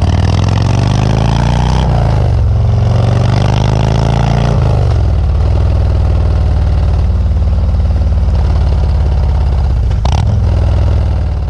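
Harley-Davidson Milwaukee-Eight V-twin engine revved up twice, then settling into a steady idle that fades out near the end. There is a brief knock about ten seconds in.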